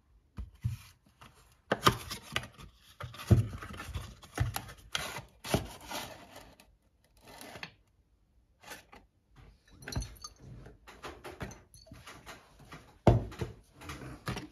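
Cardboard carton of a syrup bottle being handled: rustling and scraping of the box as the amber bottle is slid out, broken by several sharp knocks as the box and bottle are set down on a stone countertop.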